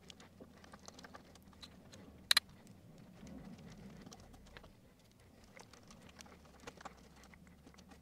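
Small precision screwdriver driving a screw into the plastic switch bracket: faint scattered clicks and ticks, with one sharp double click about two seconds in.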